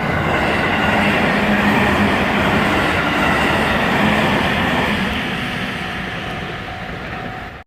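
Tokaido Line train passing over a railroad crossing, its wheels clattering on the rails. The noise swells, holds for a few seconds, fades a little, then cuts off abruptly near the end.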